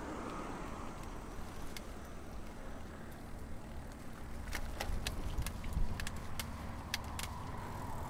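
Road bike riding along a road: steady wind rumble and tyre noise, with a few sharp, irregularly spaced metallic clicks from the bike in the second half.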